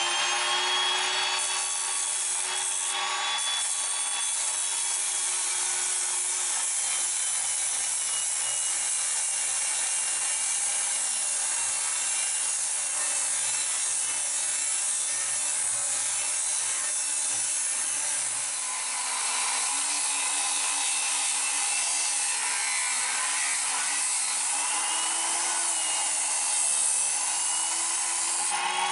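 Angle grinder grinding the steel of an excavator bucket: a steady, loud, hissing grind over the motor's hum. From about halfway through, the motor's pitch sags and wavers as it is pressed into the work.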